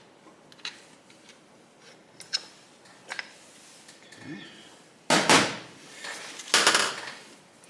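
Light clicks of engine parts and tools being handled, then two louder scraping noises of about half a second each, one about five seconds in and one about a second and a half later.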